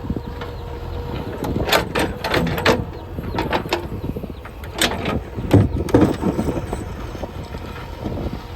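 JCB 3DX backhoe loader's diesel engine running steadily under load, with bursts of sharp knocks and scrapes as stones strike the steel bucket, mostly about two seconds in and again around five to six seconds in.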